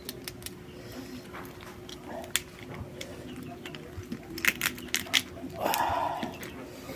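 Eating sounds: sharp clicks and cracks of shell being bitten, a few scattered and a quick cluster about four and a half seconds in, with a short louder call near six seconds over a steady low hum.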